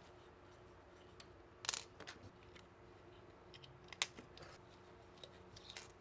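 A handful of faint, sharp clicks and ticks as small steel hex screws and an Allen key are handled and set down on a tabletop, over quiet room tone with a faint steady hum.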